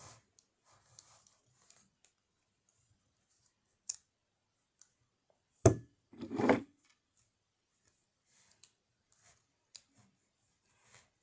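Leatherman Arc multitool being handled, its tools being swung open with scattered light clicks. One sharp loud snap about halfway through is followed at once by a short scrape of metal parts.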